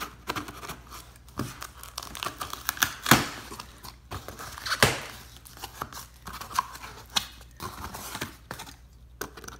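A cardboard shipping box being opened by hand: irregular tearing and crinkling of cardboard and packing, with two louder sharp rips about three and five seconds in.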